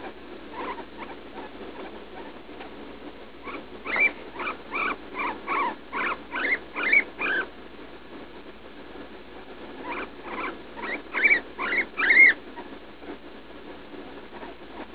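Guinea pig squeaking in pain as she passes droppings. Two runs of short, high squeaks, about three a second: the first starts about four seconds in, the second around ten seconds in.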